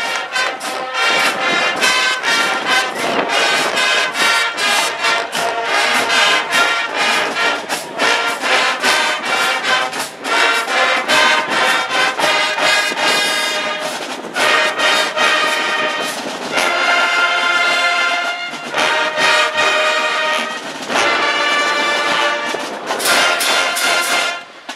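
Marching band playing outdoors: brass section with drumline hits keeping a steady beat. The music cuts off abruptly near the end.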